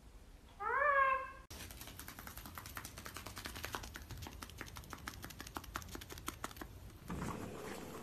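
A short meow-like call that rises and then levels off, about a second in. Then a long run of quick, light, irregular clicks, a small parrot's feet tapping on a tatami mat, until about seven seconds in, followed by a low rustle.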